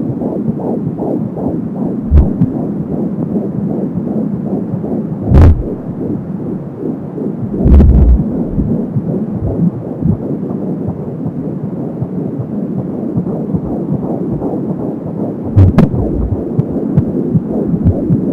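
Fetal heartbeat at 14 weeks heard through an Angelsound handheld Doppler: a fast, even pulsing of about 170 beats a minute, with a whooshing that the uploader identifies as the umbilical cord. A few loud thumps break in, about four times.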